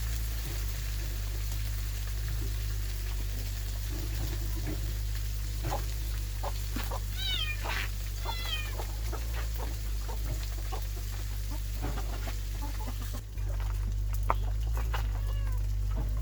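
Kittens meowing: a run of short, high calls about seven to nine seconds in, with a few fainter ones scattered through. A steady low hum runs under them.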